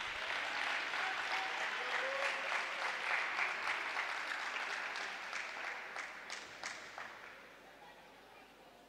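Audience applauding, the applause thinning out to a few scattered claps about six to seven seconds in and then dying away.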